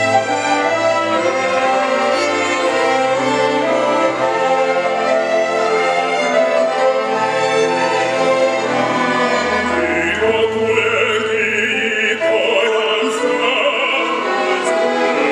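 Student string orchestra with violins playing classical music, joined about two-thirds of the way through by voices singing in an operatic style.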